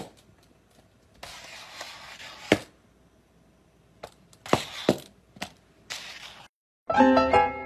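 A cup over a cat's head scraping and knocking against a tiled floor and wall: a stretch of hiss ending in one sharp knock, then a few more knocks a couple of seconds later. Xylophone-like music starts near the end.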